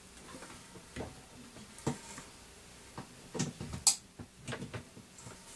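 Scattered light clicks and taps of small hard objects being handled on a workbench, the loudest about four seconds in.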